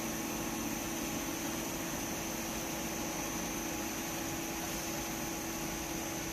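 M1420-750 cylindrical grinding machine running steadily: an even mechanical hum with a constant high whine over it.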